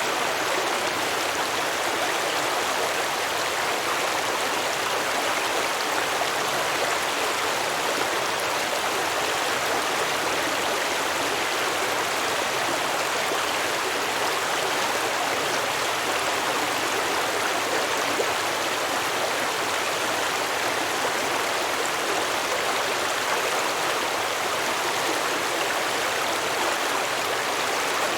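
Small stream running over rocks, a steady babbling rush of water.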